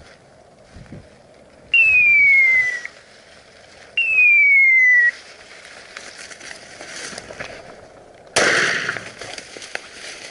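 Two loud whistle-like tones, each about a second long and falling steadily in pitch, about two seconds apart. Near the end comes a sudden burst of loud rustling noise lasting a few seconds.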